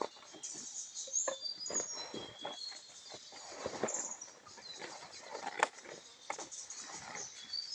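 Small birds chirping in short, high notes, over scattered light clicks and knocks.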